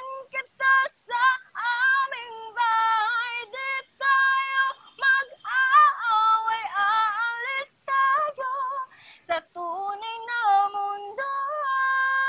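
A woman singing a Tagalog love song unaccompanied in a high voice, in short phrases with wavering, gliding notes; near the end she holds one long steady note.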